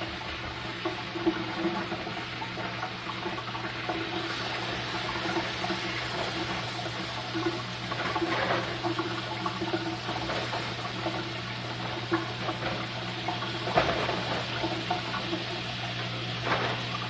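Hamburger patties sizzling steadily in a frying pan, over a steady low hum. A metal spatula knocks and scrapes against the pan a few times, most clearly near the end.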